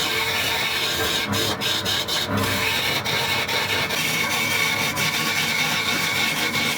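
Wood being sanded or rasped, a steady abrasive rubbing with a constant high tone under it, broken by a few short dips in the first few seconds.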